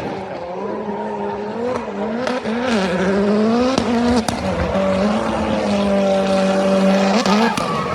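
A performance car's engine revving hard, its pitch wavering up and down, then held steady before climbing sharply near the end.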